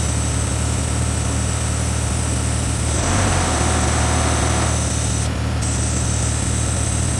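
Air hissing out of a large 37-inch off-road tire as it is let down toward 12 psi, louder for a stretch from about three seconds in, over a steady vehicle engine idle.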